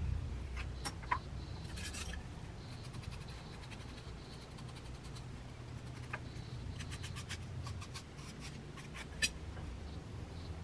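A hand tool scratching and scraping firm clay in short clusters of light clicks, over a steady low hum.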